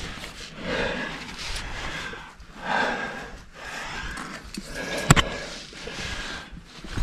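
Heavy breathing of a climber working up a narrow sandstone chimney, a breath roughly every second, with one sharp click a little after five seconds in.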